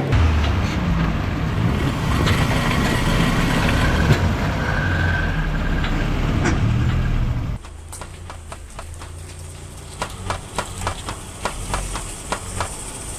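Car with a damaged CV joint, the joint clicking and cracking while the steering is turned. A loud, dense running noise lasts about seven and a half seconds, then the sound drops and a quick, uneven string of sharp clicks follows, about three to four a second.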